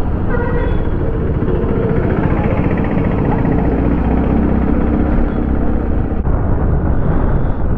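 Steady riding noise from a Yamaha Ray ZR 125 scooter on the move: a dense low rumble of road and wind, with no clear engine note standing out.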